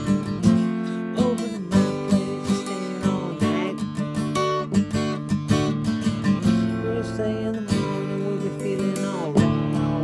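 Acoustic guitar strummed through an instrumental passage: repeated chords, with a few notes gliding in pitch.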